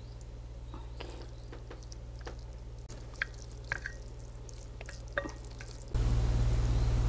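Chopsticks tossing and stirring spicy instant noodles in a sticky sauce on a plate: soft, scattered wet clicks and squelches. Under them runs a steady low hum that gets louder near the end.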